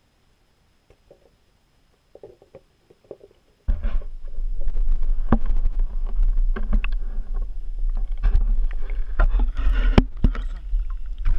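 Handling noise on a GoPro in its waterproof housing. It is near silent at first with a few faint knocks. About four seconds in, a loud low rumble starts abruptly, with repeated sharp knocks and clicks against the housing as the camera is moved in and out of the ice-fishing hole.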